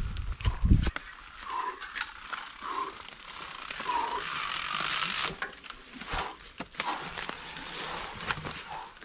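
Mountain bike tyres rolling and scrabbling over a thick carpet of dry fallen leaves and roots: a rustling, crackling crunch with scattered knocks and clicks, thickest about four to five seconds in. A few heavy low thumps in the first second.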